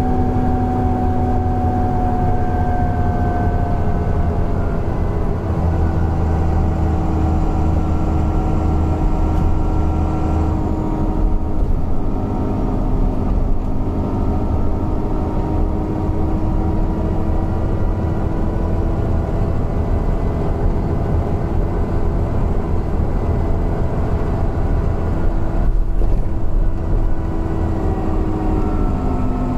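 Alexander Dennis Enviro 400 double-decker bus under way: a steady engine drone with whining tones that slowly slide in pitch as it pulls and changes gear, and the wheeze the bus is known for.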